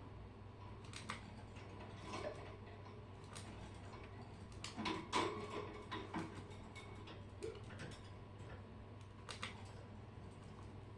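Scattered light clicks and taps at irregular intervals, busiest about halfway through, over a faint steady hum.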